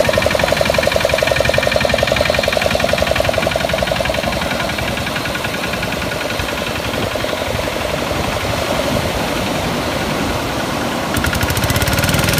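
The diesel engine of a Same 603 4WD tractor runs steadily. It is louder in the first few seconds, eases off, and picks up again near the end.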